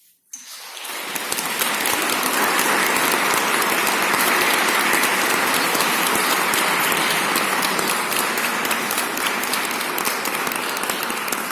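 Audience applauding, the clapping swelling up within about a second and then holding steady.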